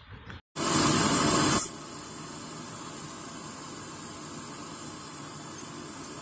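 Gas brazing torch flame hissing steadily while brazing copper refrigerant pipes on a freezer's condenser. It opens with a much louder, harsher hiss lasting about a second, then settles to an even hiss.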